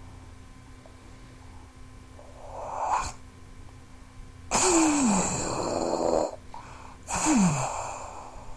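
Mouth-made war-machine sound effects: a breathy whoosh that swells to a peak about three seconds in, then a loud hissing blast lasting nearly two seconds and a shorter one about a second later, each with a falling tone.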